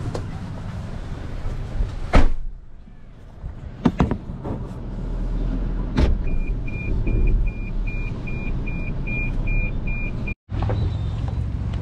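A pickup truck's door shutting with a solid knock about two seconds in, a few clicks in the cab, then the truck's warning chime beeping steadily about two and a half times a second for some four seconds before it cuts off.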